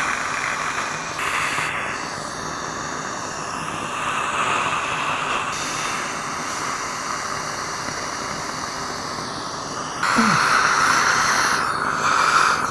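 Dental high-volume suction hissing and slurping as the air-water syringe sprays water to rinse disclosing dye from the teeth. The rush shifts in pitch as the suction tip moves and gets louder about ten seconds in.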